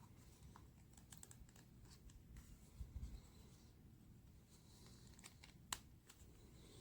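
Near silence: quiet room tone with a few faint clicks and a soft low thump about three seconds in.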